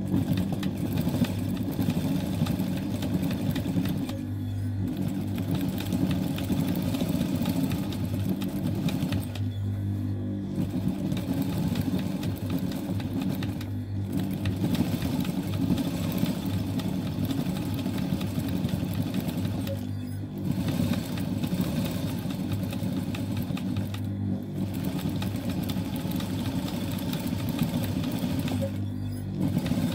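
Typical industrial lockstitch sewing machine stitching back and forth over a tear in denim: machine darning, the needle running in runs of a few seconds. It stops briefly about six times, and a low steady motor hum is left in each stop.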